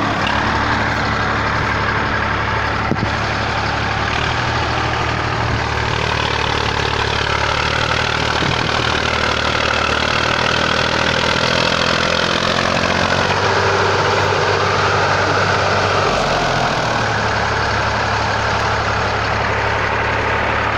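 IMT 539 tractor's three-cylinder diesel engine running steadily. Its note shifts once, about three quarters of the way through.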